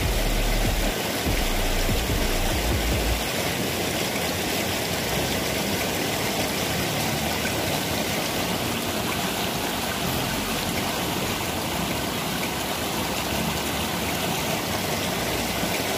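Steady rushing noise of stream water, with a low rumble for the first three seconds or so.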